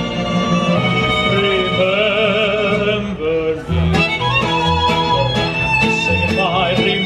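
Live mariachi band playing: violin melody with wide vibrato over strummed acoustic guitars and a pulsing bass line.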